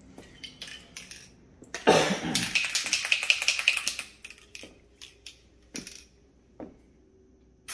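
Aerosol can of hydro-dipping activator shaken for about two seconds, its mixing ball rattling rapidly, followed by a few separate knocks.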